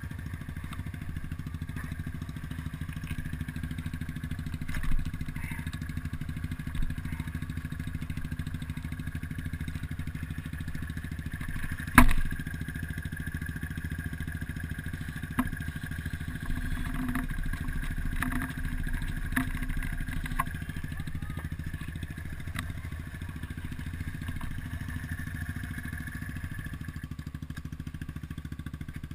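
ATV engine idling steadily while the machine sits in deep mud, with a few sharp knocks and clatters over it, the loudest about 12 seconds in.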